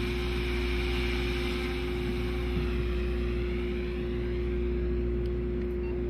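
Unmanned aircraft's engine and propeller running: a steady hum with a strong low rumble and a hiss that sweeps in pitch about halfway through.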